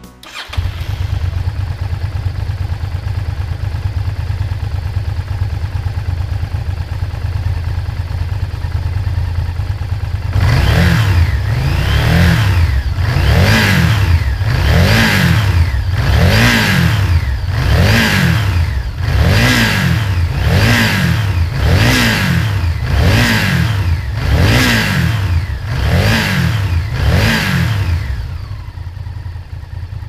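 Honda VTR1000 90-degree V-twin motorcycle engine idling steadily. About ten seconds in it is blipped through a dozen or so quick revs, roughly one every one and a half seconds, and near the end it settles back to idle.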